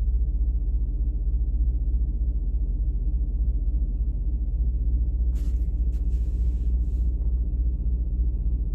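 Steady low hum or rumble, with a few short rustles about five to seven seconds in.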